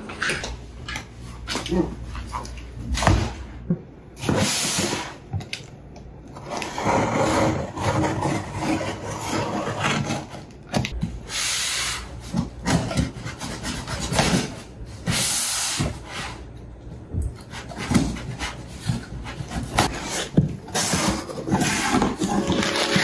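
Cardboard shipping box being handled and opened, with irregular scrapes, rips and rustles of cardboard and packing paper.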